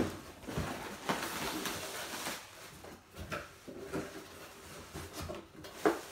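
Cardboard shipping boxes being opened by hand: flaps pulled back and packing rustled, with scattered taps and one sharper knock near the end.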